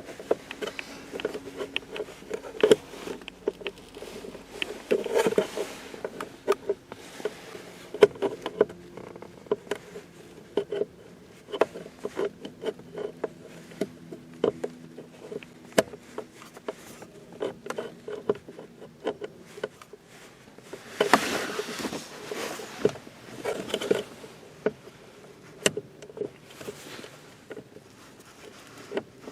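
Screws being taken out and plastic interior trim of a car's lower dash being worked loose: scattered clicks, taps and scrapes, with a faint steady low buzz at times.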